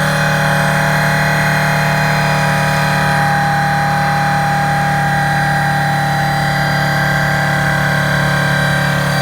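Ford F-550's V10 gas engine running steadily with the PTO-driven hydraulic pump engaged: a constant low hum with several steady whining tones above it.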